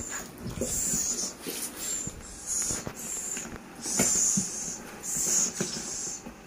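Young scops owls hissing over and over, a string of short raspy hisses about one a second. Light knocks from the wire cage and cardboard box being handled come in between.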